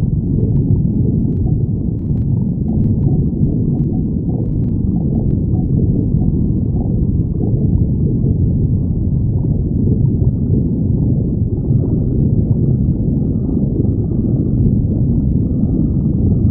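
A person's stomach growling: a continuous low, muffled rumble, with a few faint clicks in the first few seconds.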